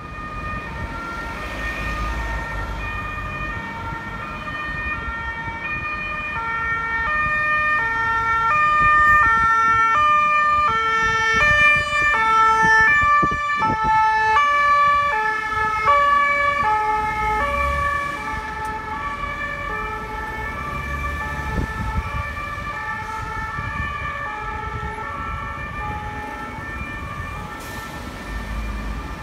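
Two-tone siren of a Mercedes-Benz Sprinter ambulance on an emergency run, alternating between a high and a low note about once a second. It grows louder as the ambulance approaches, is loudest about halfway through, then fades as it drives away, over the low rumble of passing traffic.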